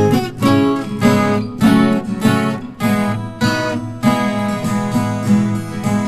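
Viola caipira, the Brazilian ten-string folk guitar, strummed and plucked in a steady hymn-tune rhythm, with a chord struck about every half second.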